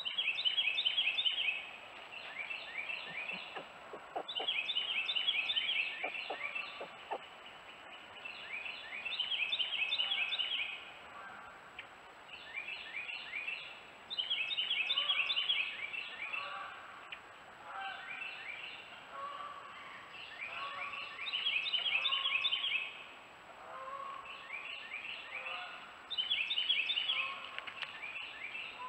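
Woodland songbirds singing: one bird repeats a loud song of rapid, downslurred notes in phrases of one to two seconds, every few seconds, with softer calls of other birds beneath.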